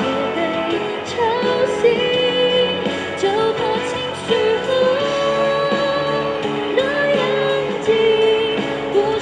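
A woman singing a slow Mandarin pop ballad over a backing accompaniment, with long held, gliding notes.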